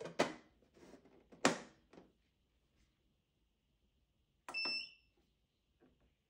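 Koro compressor ice cream maker: its clear plastic lid knocks and clicks as it is fitted into place, then about four and a half seconds in the power button clicks and the machine gives one short electronic beep as it switches on.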